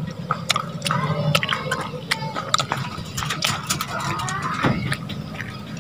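Irregular sharp clicks and small crackles of close handling over a steady low hum, with faint voices in the background.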